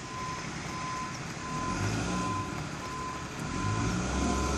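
Utility bucket truck's reverse alarm beeping at an even pace while the truck's engine revs up from about one and a half seconds in, growing louder. The truck is trying to back out but is hung up with its bumper on the ground and not moving.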